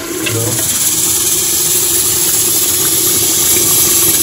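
Chicken and biryani masala frying in an open aluminium pressure cooker on a gas stove: a steady sizzling hiss.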